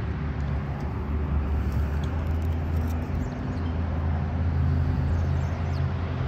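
A steady, low motor hum that holds at one pitch.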